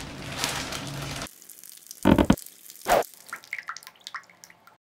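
Room noise with light rustling that cuts off sharply, then a logo sound effect: two loud wet splats about a second apart, followed by a string of quick small drips that die away.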